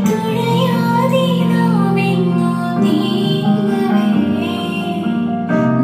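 A song with a singing voice over instrumental accompaniment, played back through an LG 5.1 home-theatre speaker system driven by a DSP amplifier.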